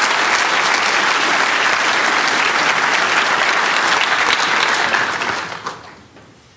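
An audience clapping steadily, which dies away about five and a half seconds in.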